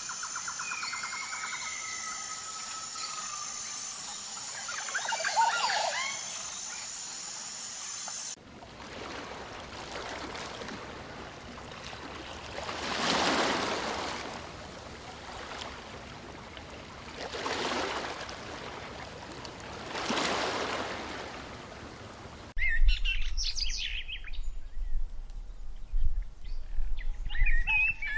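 Edited nature soundscapes. First, birds call over a steady high insect drone. About eight seconds in, this cuts to a rushing noise that swells and fades three times. Near the end it cuts again to quick bird chirps over a low rumble.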